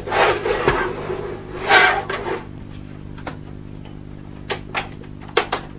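Plastic rustling and scraping, then sharp clicks, from an Xbox 360's grey plastic side cover. A small flathead screwdriver is being pushed into the cover's clips while the cover is pulled off. There are two longer scraping bursts in the first couple of seconds and several short clicks later on, over a steady low hum.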